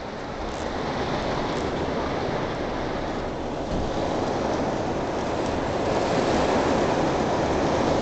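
Heavy rain pouring down onto a corrugated roof and surrounding foliage, a steady dense hiss that swells slightly over the first couple of seconds.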